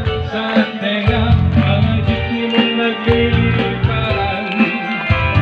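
Music with instruments and a bass line playing continuously.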